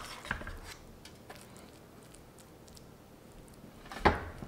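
A metal spoon scoops stuffing from a stainless skillet and packs it into a roasted acorn squash half, giving faint scrapes and small clicks. A louder knock comes about four seconds in.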